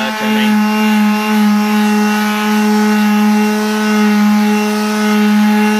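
Power orbital sander running at a steady speed with a constant whine, sanding guide coat off body filler on a car's steel body panel.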